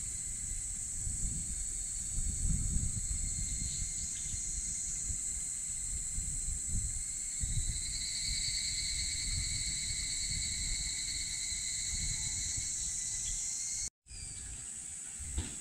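Steady shrill chorus of insects, several high drones layered together, with another joining about halfway through, over a low rumble. The sound drops out for a moment near the end.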